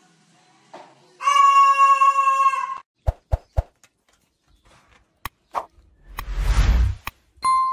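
White cockatoo calling: one long, loud, flat-pitched call held for about a second and a half, followed by a few soft knocks and a brief rustling clatter. A short ringing ding starts near the end.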